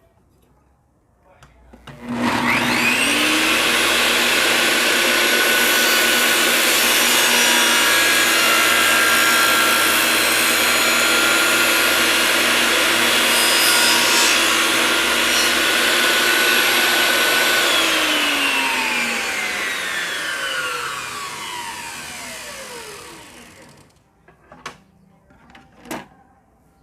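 An 1800-watt Bosch GTS 10 J table saw starts about two seconds in and runs at full speed for about sixteen seconds during a 45-degree miter test cut in 3/4 plywood. It is then switched off and winds down, its whine falling in pitch over several seconds. Two short clicks follow near the end.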